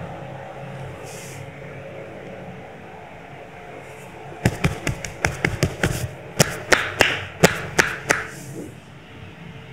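A masseuse's hands striking the body in a quick run of sharp slaps, about four a second, starting about halfway through and lasting a few seconds. A steady low hum sits underneath.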